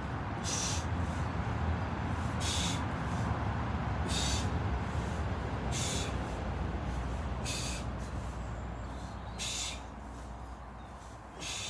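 A person doing prone starfish exercise reps: a short hiss comes about every two seconds, in time with the arm sweeps. A steady low rumble lies underneath and eases slightly near the end.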